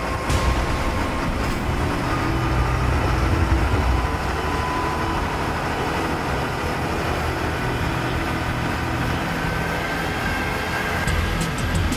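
Steady apron noise around a parked Boeing 777 freighter before engine start: a low rumble with faint whining tones, and a few light clicks near the end.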